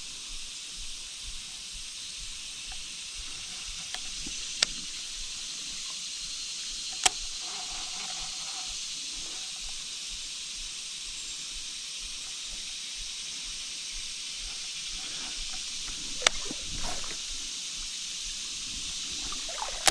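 Steady high-pitched hiss of creekside outdoor sound, with a few sharp clicks, the loudest about seven seconds in.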